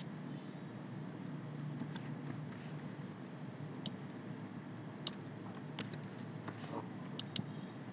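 Scattered clicks of a computer mouse and keyboard, about eight spread irregularly, over a steady low background hum.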